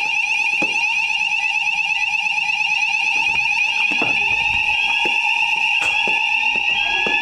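Building fire alarm sounders going off during an alarm test: a loud, steady electronic tone with a fast warble. About halfway in, a second sound joins with a rising sweep repeated roughly once a second.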